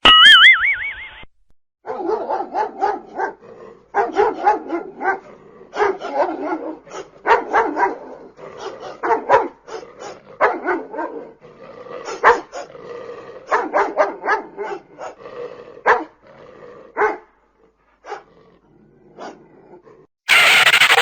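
Dog barking sound effect: clusters of short barks and yips, coming in quick bursts with short pauses between them. A brief wavering cartoon-like tone comes first, and a loud new sound begins just before the end.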